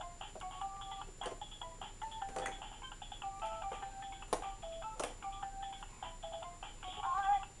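A simple electronic tune of short, steady beeping notes stepping between a few pitches, with a few sharp knocks.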